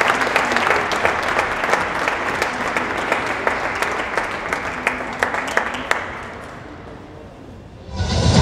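Audience applauding, the clapping thinning out and dying away about six seconds in. Music starts suddenly near the end.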